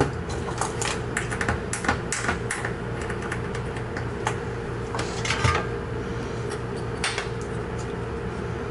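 Scattered light clicks and taps of small parts and tools being handled on a workbench, over a steady hum.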